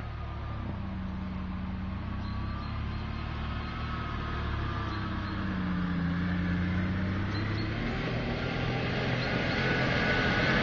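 A motor vehicle's engine running, getting steadily louder, its pitch sagging and then rising again about midway.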